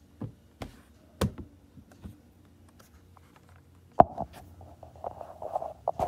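A few sharp knocks and taps, then a louder knock about four seconds in followed by muffled bumping and rustling.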